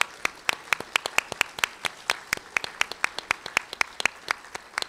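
Applause: sharp, even hand claps about four a second standing out over fainter clapping from the audience.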